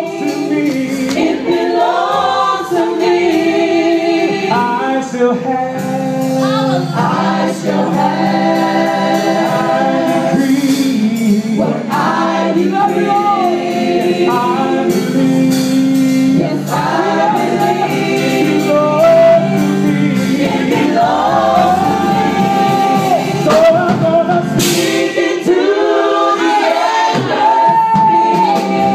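A gospel praise team of several men and women singing a worship song together through microphones, with live keyboard accompaniment holding sustained chords under the voices.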